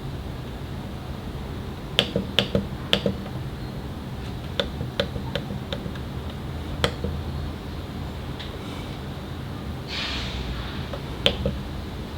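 Small sharp clicks of a Panasonic Lumix S9 camera's buttons being pressed while stepping through its print menu. They come in quick runs of four or five, then single presses, over a low steady hum.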